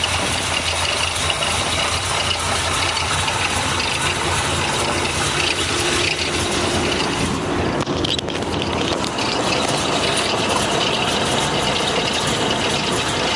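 1964 Corvette's 350 V8 with dual four-barrel carburettors and headers, idling steadily.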